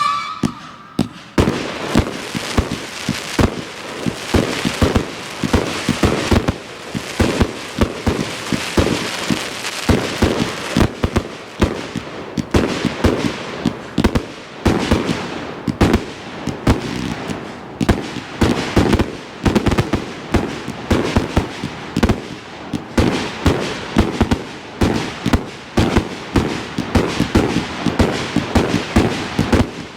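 Night Owl Grave Digger compound firework cake firing a dense, rapid barrage of shots and bursts, about two to three a second, with a continuous crackle between them.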